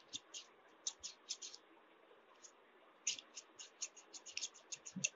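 Old brass-handled steel scissors being opened and closed repeatedly, the blades rasping against each other in faint, short, crisp scrapes: a few at first, then a quick run of about a dozen near the end. Sewing-machine oil is being worked into the stiff pivot to free it.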